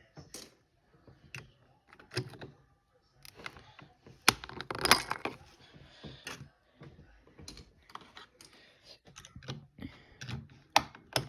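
Keyboard keys and plastic keycaps clicking and clacking irregularly, single clicks and short clusters, as keys are handled and pressed.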